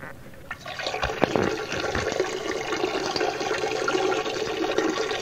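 A stream of urine splashing into the water of a toilet bowl, starting about half a second in and running steadily on.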